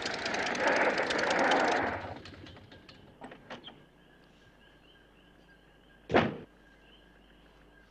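A biplane's piston engine and propeller running loudly, cutting out about two seconds in. Insects chirp steadily after that, and a single loud thump comes about six seconds in.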